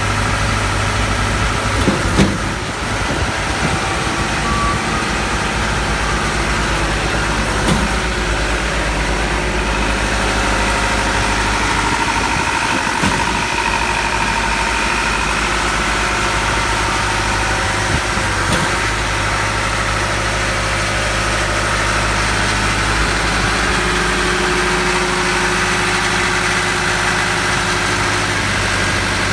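Engine of a Schwing Stetter SP1200 concrete pump running steadily, with a short knock every five or six seconds through the first part.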